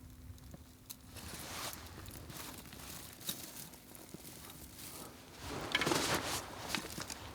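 Rustling and crunching with scattered light clicks, louder around six seconds in.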